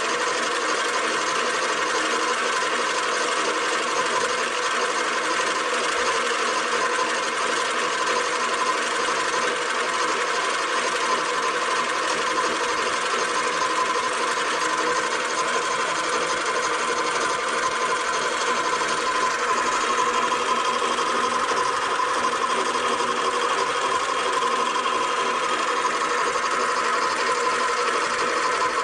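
Bench lathe running under power feed while the cutting tool takes a turning pass along a metal bar: a steady mechanical running sound with a whine that grows a little stronger in the second half.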